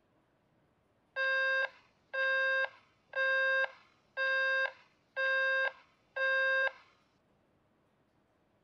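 Mobile phone call-ended tone: six short electronic beeps about a second apart, the line gone dead after the other party hangs up.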